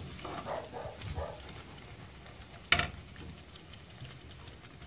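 Blended pumpkin-seed, peanut and spice paste frying in oil in a clay cazuela, sizzling faintly while a wooden spoon stirs it. A single sharp knock a little past halfway.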